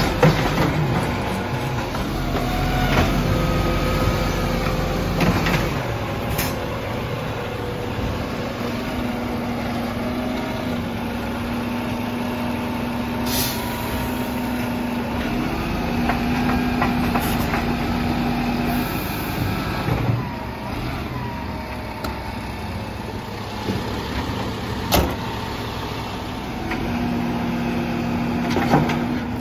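Volvo side-loading garbage truck with its diesel engine running while the hydraulic grab arm lifts and tips wheelie bins into the hopper. A steady hum comes and goes, with a few sharp clunks of bins knocking.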